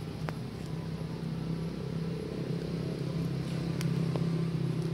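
A steady low motor drone that swells a little toward the end, with a few faint clicks.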